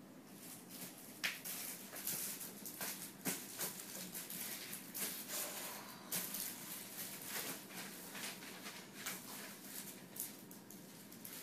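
Irregular rustling and soft clicks of a German Shepherd puppy being cuddled and handled.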